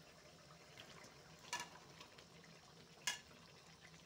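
A steel spoon scrapes chicken pieces off a plate into a kadai of masala gravy, which sizzles faintly. The spoon clinks sharply twice, about a second and a half apart.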